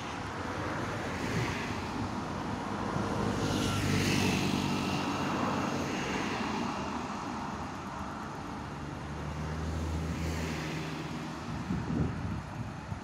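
Road traffic passing close by: cars and a motorcycle driving past, with a rushing noise that swells twice and an engine's low hum underneath. Wind buffets the microphone near the end.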